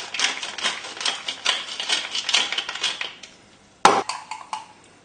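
Pepper being ground into a mortar, a quick crackling grind lasting about three seconds, then a single sharp knock a little before the end.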